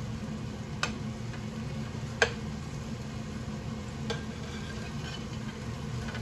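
Hamburger patties frying in a pan while a slotted spatula scrapes under them and knocks against the pan three times as they are flipped, the loudest knock about two seconds in. A steady low hum runs underneath.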